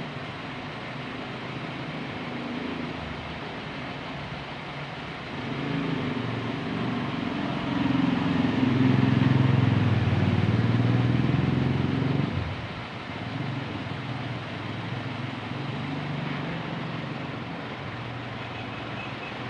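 An engine running steadily, growing louder from about five seconds in and dropping back abruptly a little after twelve seconds.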